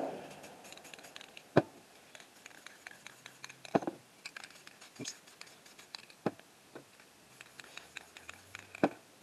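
Irregular hard knocks and lighter ticks as a metal rod and gloved hand are handled on the spray-painting surface, with five louder knocks spaced one to two and a half seconds apart.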